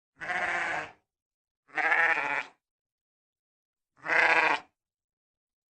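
Sheep bleating: three separate bleats, each under a second long, with silence between them.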